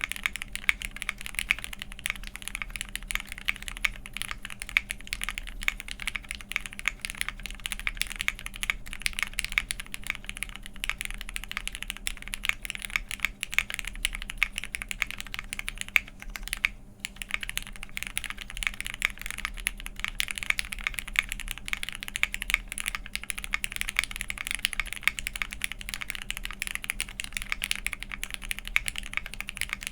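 Continuous fast typing on a Crucible65 custom mechanical keyboard with lubed and filmed Cherry MX Hyperglide Black linear switches, an aluminium plate, GMK keycaps and case foam fitted. Typing stops briefly about 17 seconds in.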